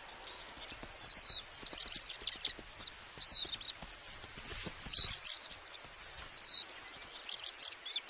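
Wild birds chirping in short, high, quickly sliding call notes repeated every second or so, with a few soft low thuds around the middle.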